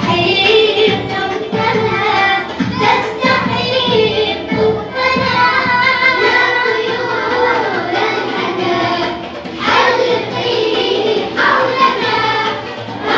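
Children singing a song in Arabic, continuous sung melody.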